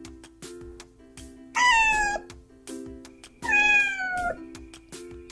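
Domestic cat meowing twice, each meow a little under a second long and falling in pitch, over background music.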